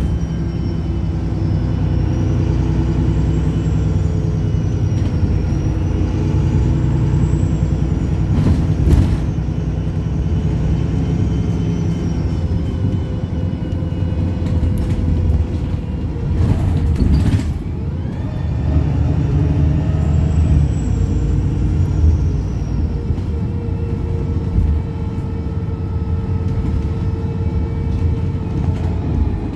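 Inside a Wright Pulsar single-deck bus on the move: its diesel engine runs loudly, the revs rising and falling. Two short hisses of air come through, about a third of the way in and again a little past halfway.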